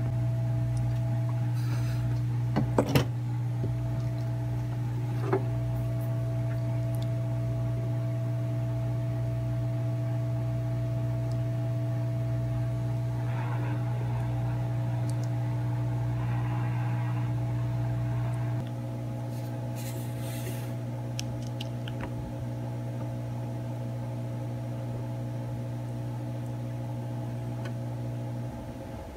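A steady low electrical hum, with a few small clicks and taps near the start; the hum drops slightly in level about two-thirds through.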